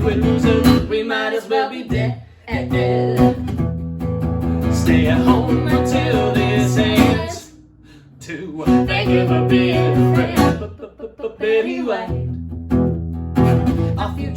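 Music led by guitar over a steady bass, dropping out briefly about halfway through.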